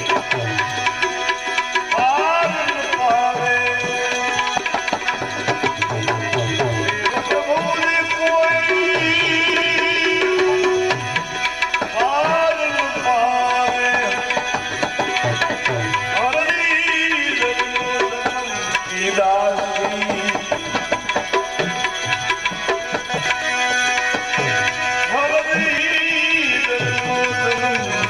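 Devotional bhajan music: tabla played in a dense, fast rhythm under a sustained melodic line whose notes slide up and down in recurring phrases.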